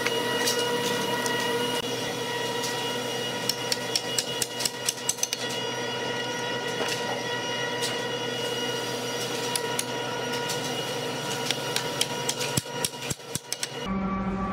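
Wooden door-frame parts handled and fitted together, with quick runs of taps and knocks, over a steady mechanical hum. Near the end the hum changes abruptly to a lower one.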